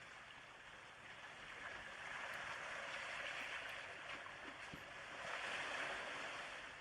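Rushing water like waves washing in, a steady wash that swells twice.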